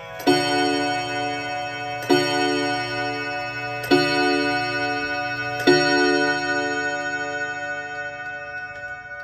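1930s Urgos chime mantel clock striking on its gong: four strokes of the same note about two seconds apart, each left ringing and slowly fading, as when the clock strikes the hour after its quarter chime.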